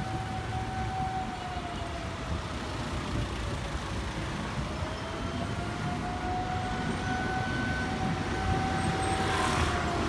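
Road traffic noise with a steady whine over it that sags in pitch a few seconds in and then climbs back; a vehicle draws closer near the end.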